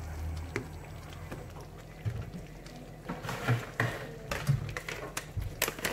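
A wooden spoon briefly stirring thick rice porridge in a pot, followed by scattered light clicks and knocks.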